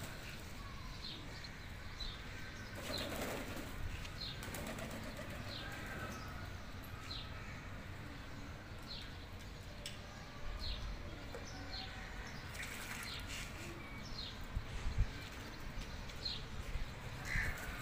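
Domestic pigeons flapping their wings as they bathe in a shallow pan of water, with short high chirps repeating about once a second.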